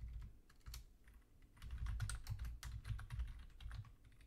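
Typing on a computer keyboard: an irregular run of key clicks, busier from about a second and a half in.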